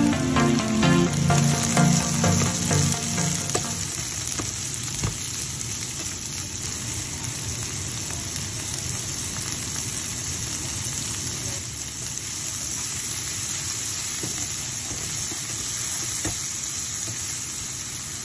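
Sliced onion and diced red bell pepper sizzling steadily in oil in a frying pan, stirred with a utensil that clicks against the pan a few times. Background music fades out about three seconds in.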